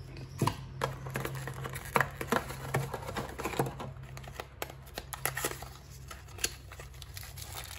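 Cardboard packaging being handled: a white card insert lifted out of the box and a small paper packet picked up, giving irregular clicks, taps and short rustles over a faint steady low hum.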